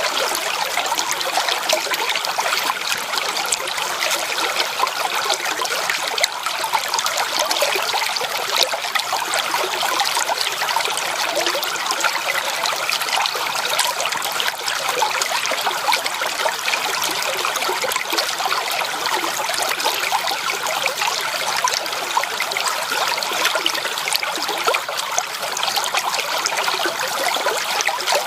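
Creek water running steadily, trickling and splashing over stones.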